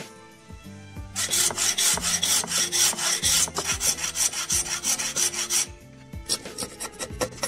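A hand tool cutting into a dense hardwood plane body in fast, even strokes, starting about a second in and stopping suddenly a little over four seconds later, followed by a few lighter ticks. Soft music plays underneath.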